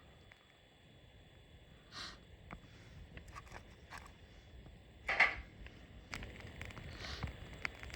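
Scattered rustling and handling noises with small clicks, the loudest rustle about five seconds in.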